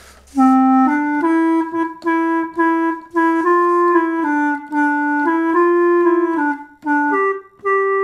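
Hohner Claviola, a mouth-blown reed keyboard instrument, playing a short melody of single clear, clarinet-like notes, each about half a second long, with a couple of brief pauses near the end.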